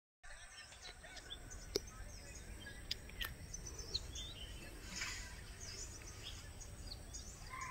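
Outdoor ambience of birds chirping and calling in short, scattered notes over a steady low rumble of background noise, with a few sharp clicks.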